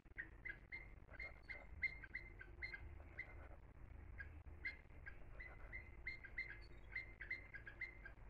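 Kitchen knife cutting cooked chicken on a wooden cutting board: an uneven run of light taps, about three a second, each with a short ringing note.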